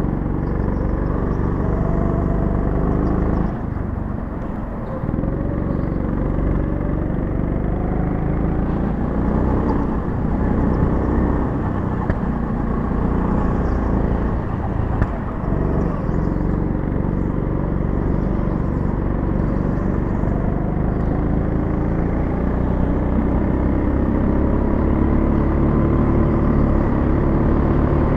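Go-kart heard from on board, running at speed, its pitch rising and falling with the throttle through the corners. The sound drops briefly about four seconds in, then climbs again.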